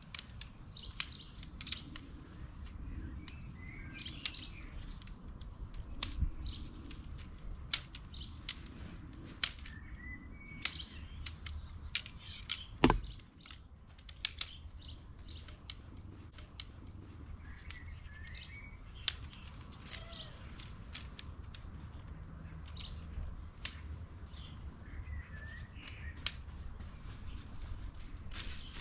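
Sharp clicks and knocks, scattered throughout, from the Big Agnes Copper Spur HV UL2's tent pole sections being handled and snapped together, with one louder knock about halfway through. Songbirds chirp now and then over a low rumble.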